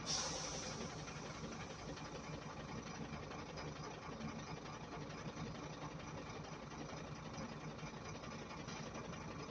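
Steady, unchanging background hum of a running motor, with a low drone.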